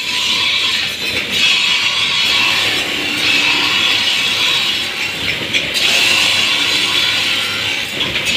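Steel sword blade being ground against a spinning abrasive grinding wheel to sharpen its edge: a steady grinding hiss that drops briefly a couple of times as the blade comes off the wheel.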